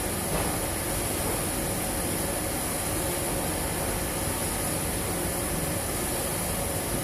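Steady machine hum and hiss of laboratory equipment, with a faint high steady whine.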